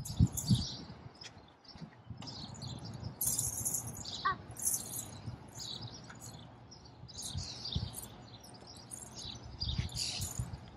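Birds chirping and singing, many short calls one after another, with a few dull thumps at the start and a few more later on.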